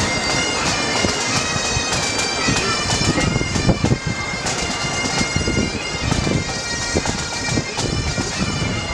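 Reedy wind-instrument music playing loud held notes, with drum beats underneath.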